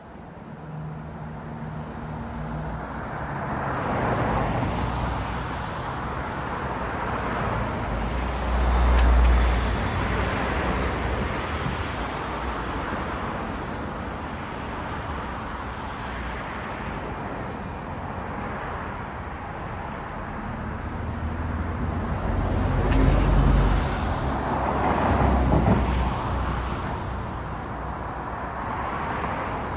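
Road traffic: a steady wash of tyre and engine noise with a low rumble. Several vehicles pass close by, swelling and fading about four seconds in, around nine seconds, and twice more near the end.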